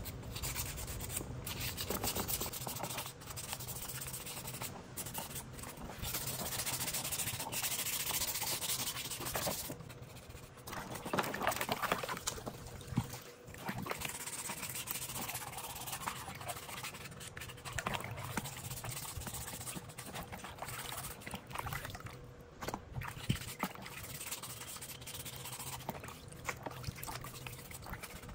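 Rubbing and scraping from hand work on chainsaw parts, going in uneven strokes with a few sharp knocks.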